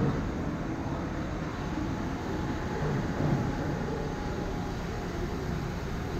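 Steady low rumble of an indoor ice rink's background noise, with the play too far down the ice to stand out.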